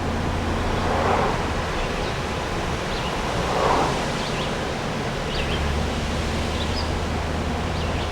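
Class A motorhome driving: a steady low engine drone under a constant road and wind hiss, with a couple of soft swells.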